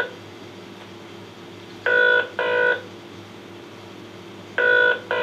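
Telephone call tone (ringback) recorded from a real telephone, in a double-ring cadence: two short tones close together, repeating about every three seconds. One double ring ends right at the start, and full ones come about two seconds in and near the end.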